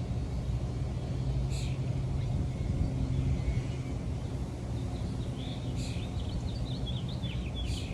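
Birds calling over a steady low outdoor rumble: a couple of short sharp calls, then a quick run of high chirps near the end.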